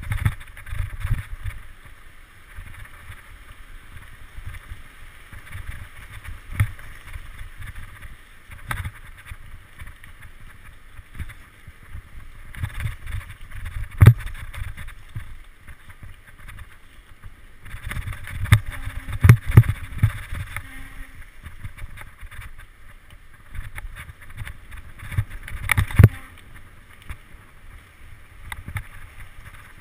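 Mountain bike ridden fast down a rocky forest singletrack, heard from a GoPro on the bike or rider: steady wind rush on the microphone and tyre rumble. Sharp knocks and rattles as the bike hits bumps and rocks, the loudest about halfway through, in a cluster around two-thirds through, and near the end.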